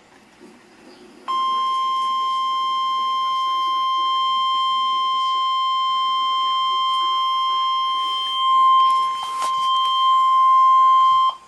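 NOAA Weather Radio warning alarm tone: a single steady high beep near 1050 Hz, held for about ten seconds. It signals that a severe thunderstorm warning is about to be read. It starts about a second in and cuts off suddenly near the end, with a brief click partway through.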